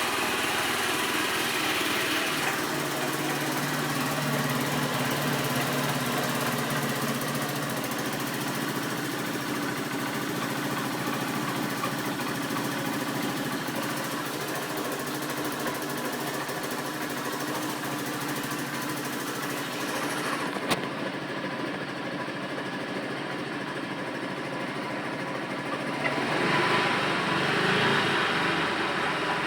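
Honda Invicta motorcycle's small single-cylinder engine running steadily, with a noise the owner calls strange. There is a sharp click about two-thirds of the way through, and the engine grows louder near the end.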